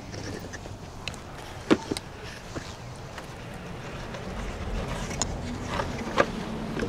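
Small items being handled in a plastic storage tote: a few sharp clicks and clinks of a glass bottle and metal jewelry, over a low rumble that grows about four seconds in.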